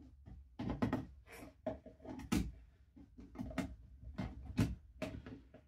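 Metal airsoft gearbox shell and its wiring being handled on a tabletop: an irregular run of small clicks, taps and knocks, a couple of them sharper than the rest.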